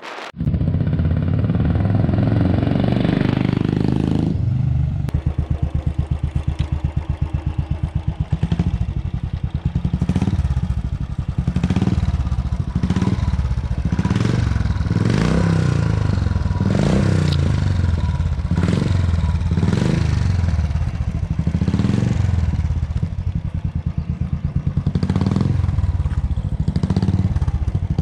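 Royal Enfield Classic 350's single-cylinder engine through a Vardenchi Retro aftermarket silencer. The note falls away over the first few seconds, then the bike idles with a steady thump and is revved in short throttle blips about once a second.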